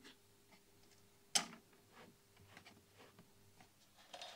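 Quiet light clicks and scrapes of a twisted pair of solid-core filament wire being handled and bent around a tube socket's lugs, with one sharper click about a second and a half in.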